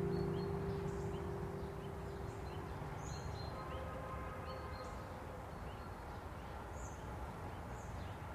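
The last strummed chord of a steel-string acoustic guitar ringing out and fading away over the first few seconds, then outdoor ambience with birds chirping now and then.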